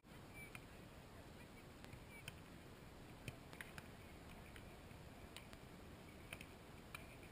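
Near silence: faint steady outdoor hiss with a scattering of faint, sharp taps.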